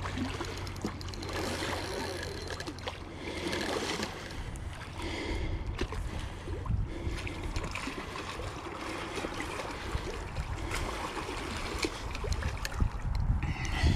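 Hooked wels catfish thrashing at the water's surface close to the bank while being played on a rod: irregular splashing and gurgling water, heavier near the end.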